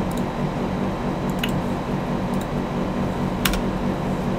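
Air conditioner running steadily in the background, with a few scattered computer keyboard keystrokes as a short command is typed.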